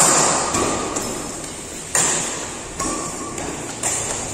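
Badminton rackets hitting a shuttlecock in a doubles rally: about four sharp hits, one to two seconds apart, each echoing through the hall.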